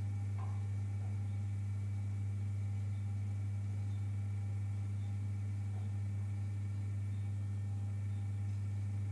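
Steady low hum of running aquarium equipment, with a few faint higher tones above it.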